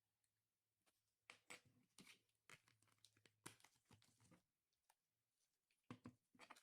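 Near silence: room tone with faint scattered clicks and a faint low hum.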